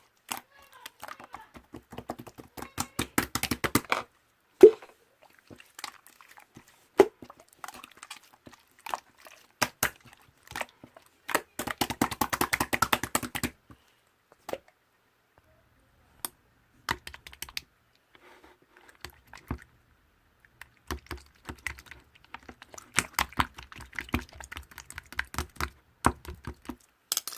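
Slime being squished and poked by hand, giving rapid runs of small clicks and pops from trapped air, in several bursts with sparser clicking and brief pauses between.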